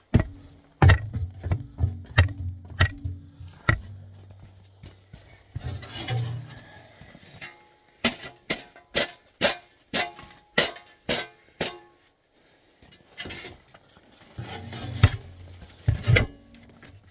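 Footsteps and knocks on temporary metal stairs, each strike ringing briefly, with a steady run of about two steps a second in the middle. A low hum sits under the first few seconds and again near the end.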